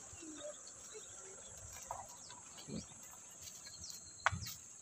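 Steady, faint, high-pitched drone of insects, with a single short knock about four seconds in.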